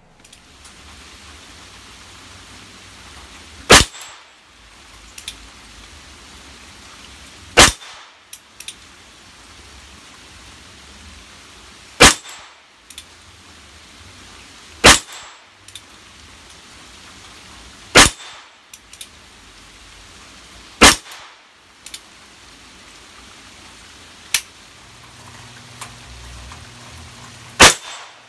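Ruger Wrangler .22 Long Rifle single-action revolver being fired slowly: seven sharp shots, roughly every three to four seconds, with lighter clicks and clinks between the shots.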